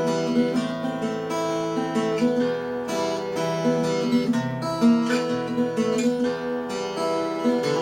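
Acoustic guitar strummed in a steady rhythm, an instrumental blues passage with no singing.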